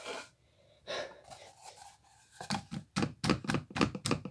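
Cardboard tube puppets being handled, with faint rubbing and then a quick run of short scraping, tapping strokes, about four or five a second.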